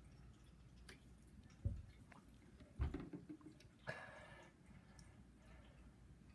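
Faint mouth sounds of a man drinking and swallowing water from a plastic bottle, with two dull thumps a little over a second apart. About four seconds in comes a breathy open-mouthed exhale against the burn of a super-hot pepper.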